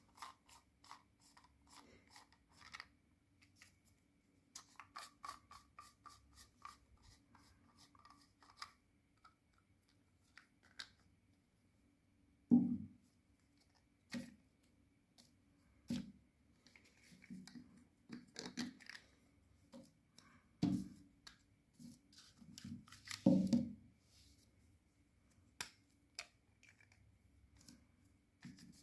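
Hands taking apart a black plastic compression pipe coupling: irregular plastic clicks, scrapes and light knocks as the nut is unscrewed and the plastic rings and rubber O-rings are handled and set down on paper. A few louder knocks come about twelve, twenty-one and twenty-three seconds in.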